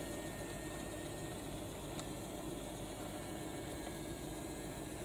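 Small electric motor of a battery-powered toy locomotive running steadily as the train rolls around plastic track, with a light click about two seconds in.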